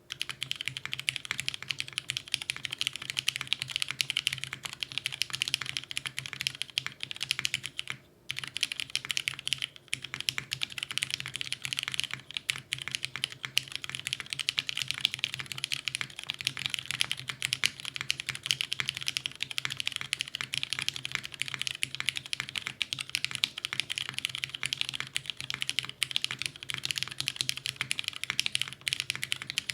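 Continuous typing on a Merisi Sessantacinque 65% custom mechanical keyboard: lubed Cherry MX Brown Hyperglide tactile switches on a POM plate with no dampening, and GMK keycaps. It is a dense, unbroken stream of keystroke clacks with a brief pause about eight seconds in.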